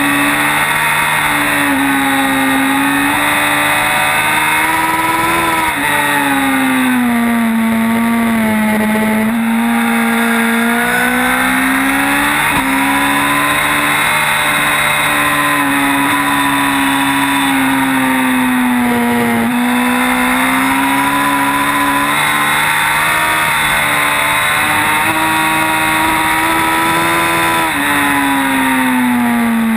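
Sportbike engine at high revs, heard from a camera mounted on the bike: its pitch climbs under acceleration and sinks under braking, with a few sudden jumps in pitch at gear changes.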